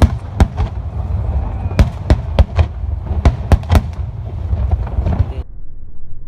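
Fireworks display with aerial shells bursting in quick succession: a dozen or so sharp bangs over a continuous low rumble, cutting off abruptly about five seconds in, after which only a low rumble remains.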